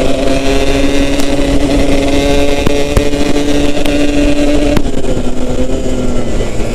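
Yamaha RX King's single-cylinder two-stroke engine running at steady cruising revs while riding, over wind rumble, with a few sharp knocks. About five seconds in, the engine note drops slightly as the throttle eases.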